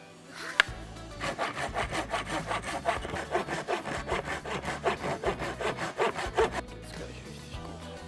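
Hand saw cutting through a piece of driftwood with quick, even back-and-forth strokes, starting about a second in and stopping near the end, after a single sharp click.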